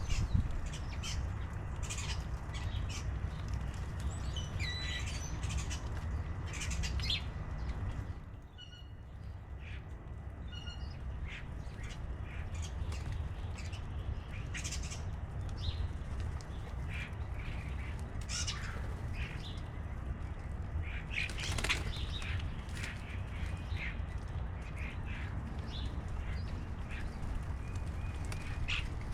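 Birds at a feeder: wings flapping as they come and go, with scattered short chirps and calls over a steady low rumble.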